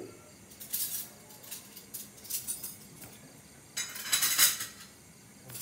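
A metal spoon scraping and clinking against a plastic tub while stirring a runny chili dipping sauce: several short scrapes, the longest and loudest about four seconds in.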